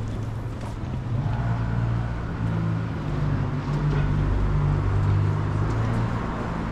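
Street traffic with a motor vehicle's engine running close by, a low steady hum that grows louder about a second in.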